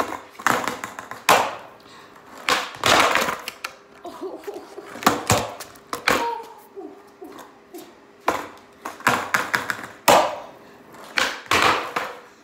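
Skateboard on a concrete floor during kickflip attempts: short runs of wheels rolling, broken by about a dozen sharp clacks and slaps as the tail pops and the deck and wheels hit the concrete.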